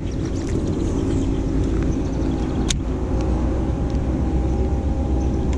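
A boat motor running steadily: a low drone with a steady hum over it. A single sharp click about two and a half seconds in.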